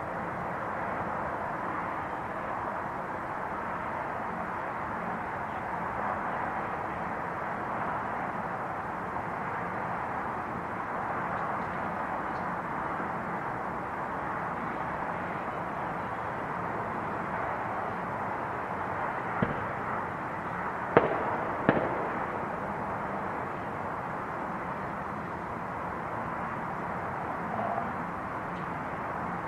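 Distant neighbourhood fireworks and firecrackers: a steady far-off din, with three sharper bangs close together about twenty seconds in, the middle one loudest.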